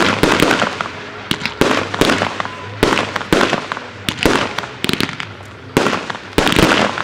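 Aerial firework shells bursting in quick, irregular succession, about a dozen sharp bangs over seven seconds, each trailing off briefly.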